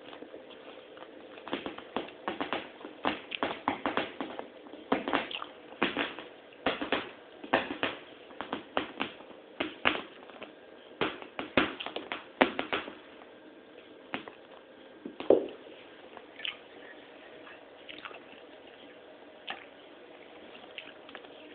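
Pets eating from a dish: a quick, irregular run of small clicks and taps for about ten seconds, then only a few scattered taps, one louder than the rest.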